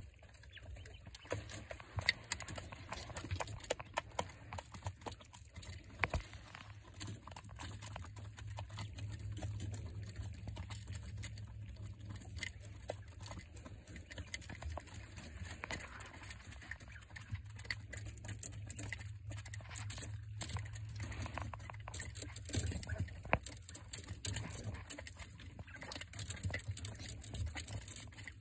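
Quail pecking at feed in plastic feeder trays and wood shavings: many quick, irregular taps and clicks, over a low steady hum.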